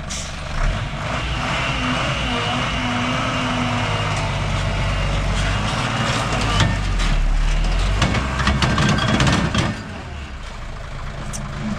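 Car engine running with a thin high whine over it. It gets louder for about three seconds in the second half, then eases off near the end.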